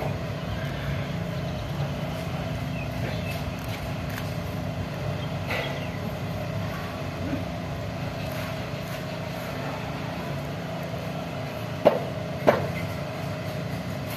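Steady low mechanical hum, with two sharp knocks about half a second apart near the end.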